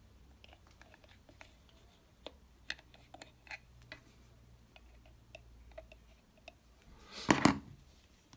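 Light, scattered clicks and taps of small parts being handled at a moka pot's plastic lid valve. About seven seconds in comes one louder, brief scrape or rustle.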